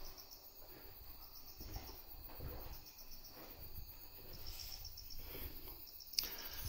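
Crickets chirping faintly and steadily, a high pulsing trill, with soft footsteps about once a second.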